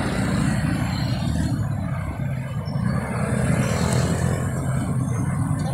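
Wind buffeting a phone's microphone: a steady, fluttering low rumble with no other clear sound.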